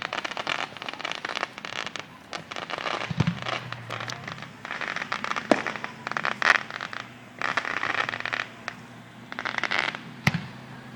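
Aerial fireworks in a finale: long spells of dense crackling, broken by several sharp louder bangs.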